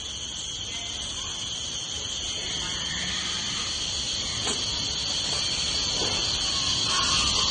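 Steady, high-pitched chorus of insects, crickets or cicadas, with a faint click about four and a half seconds in.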